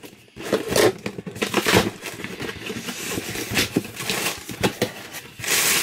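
Rustling and crinkling of a subscription box's packaging, with scattered knocks and scrapes, as the box is opened and items are pulled out. A louder rustle comes near the end.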